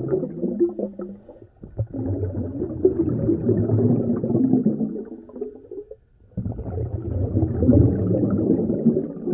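Muffled underwater bubbling and gurgling, as heard through an underwater camera housing. It comes in three surges separated by short breaks about a second and a half in and about six seconds in.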